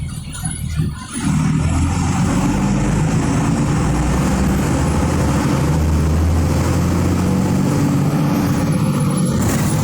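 Volkswagen 17.210 EOD bus's diesel engine running under load, getting louder about a second in and then holding steady.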